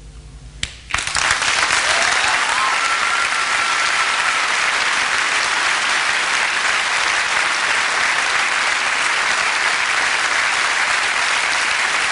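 Theatre audience breaking into applause about a second in and clapping steadily, with a brief whistle rising above it shortly after.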